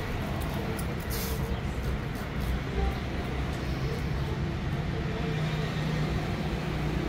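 Street traffic: a steady rumble of passing vehicles, with a short hiss about a second in and a steady low engine hum from about five seconds on.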